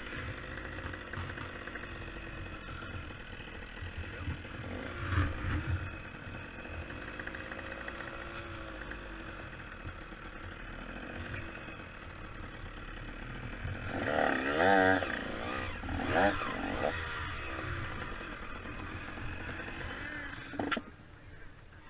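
Two-stroke engine of a supermini dirt bike idling, with two brief louder passages, about five seconds in and again around fourteen to sixteen seconds in.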